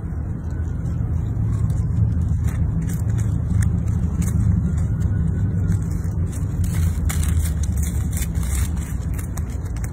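Steady low rumble with dry scratching and crackling of soil and dead leaves as a squirrel digs with its front paws close by; the scratching grows dense about two-thirds of the way in.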